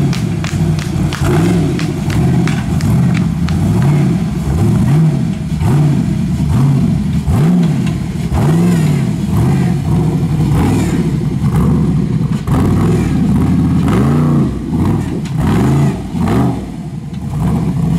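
Off-road competition jeep's engine revved in repeated throttle blips under load on a steep rocky climb, its pitch rising and falling about once a second.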